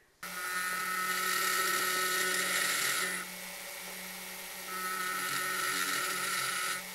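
Jeweller's rotary handpiece with a small ball burr whining steadily as it carves a rain-like texture into sterling silver. Its higher whine drops away about three seconds in and comes back about a second and a half later, over a steady low hum.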